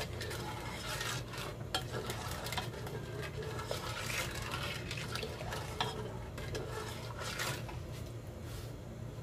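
A ladle stirring milk with sugar, almonds and raisins in a non-stick pot, making irregular scrapes and light knocks against the pot, over a low steady hum. The sugar is being stirred into the milk to dissolve it into a syrup.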